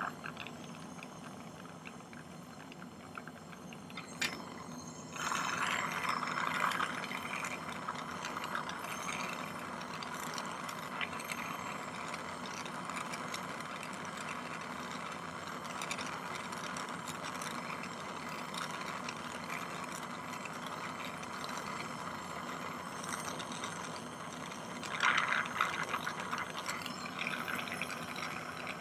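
Jeweller's gas torch flame hissing steadily while sterling silver wire is heated for hard soldering. The hiss gets suddenly louder about five seconds in and swells briefly near the end.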